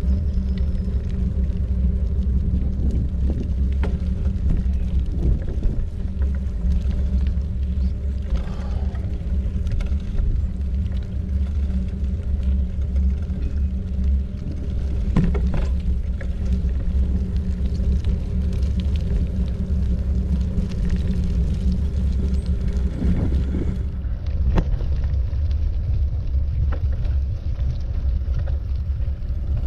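Steady low rumble of wind and road noise while on the move, with a faint steady hum and a few brief knocks.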